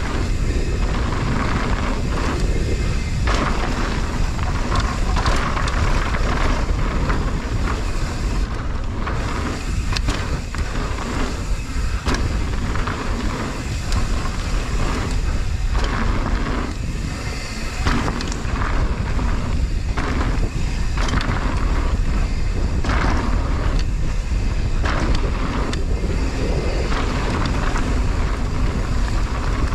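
Mountain bike ridden down a dirt trail: wind buffeting the microphone with a constant low rumble, tyre noise on dirt, and frequent clattering knocks from the bike over bumps.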